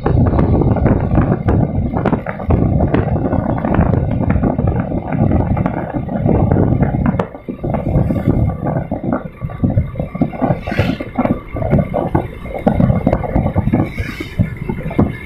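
Wind buffeting the microphone on a moving motorcycle: a loud, uneven rumble that dips briefly about seven seconds in and turns choppier after.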